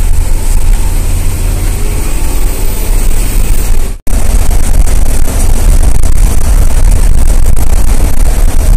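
Steady, loud, low rumble of a bus's engine and tyres heard from inside the cabin while driving through a road tunnel. The sound cuts out for an instant about four seconds in.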